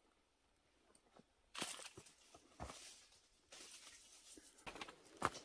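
Footsteps crunching on dry leaves and rock, with rustling, starting about a second and a half in and coming in several short bursts.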